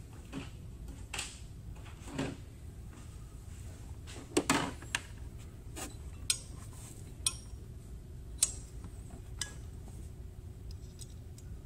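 Scattered light clicks, taps and knocks of an oil separator can and its rubber hoses being handled and lined up against the mounting bracket in an engine bay, with the loudest knocks about four and a half seconds in.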